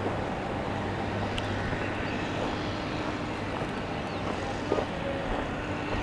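Steady outdoor background noise with a faint, even low hum throughout, and one small click near the end.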